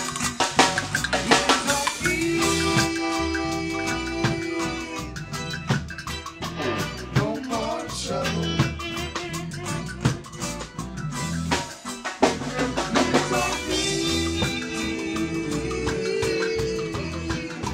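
Live rock band playing, with a drum kit and cymbals driving a steady beat and long held notes over it, twice.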